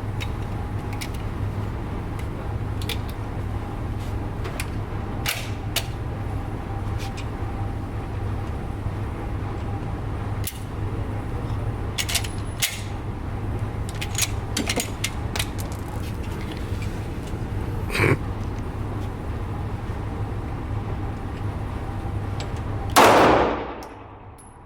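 Pistol gunfire: scattered sharp shots and clanks, a louder shot about three quarters of the way through, and one loud close shot with a ringing tail near the end, over a steady low hum.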